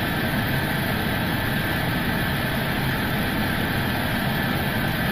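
Steady flight-deck noise of an Airbus A320neo on final approach with the landing gear down: an even rush of air and engine noise at a constant level, with a faint steady whine.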